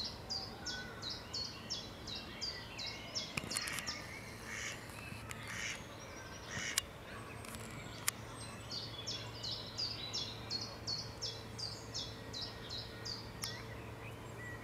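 Mallard ducklings peeping: runs of short, high, falling peeps, about three a second, that break off for a few seconds in the middle and resume. A few sharp clicks fall in the gap.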